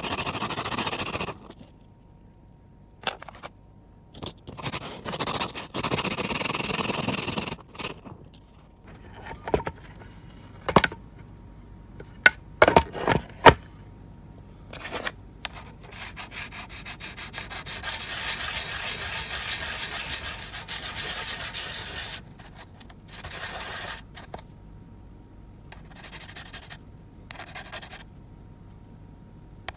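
A Rochelle salt crystal being rubbed by hand on a 400-grit diamond sharpening plate to grind its surface flat: a dry, gritty scrape in several stretches, the longest about six seconds past the middle. A few sharp clicks come around the middle.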